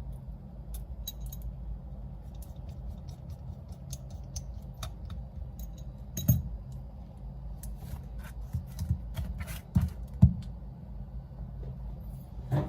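Small tools and phone parts being handled on a repair bench: scattered light clicks, taps and small scrapes, with a few louder knocks about halfway and again near the end, over a steady low hum.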